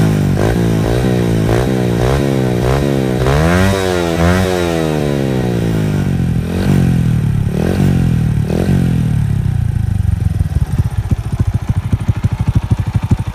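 Honda Astrea Grand's single-cylinder four-stroke engine revved through a hollowed-out Supra X 125 FI muffler: a quick run of short throttle blips, one longer rev rising and falling, a few more blips, then settling into a lumpy idle from about ten seconds in. The exhaust has a solid bass note.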